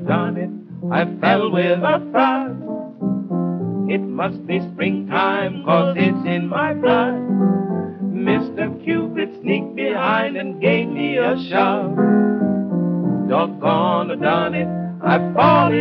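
Male vocal duet singing to piano accompaniment on a 1934 Columbia 78 rpm shellac record.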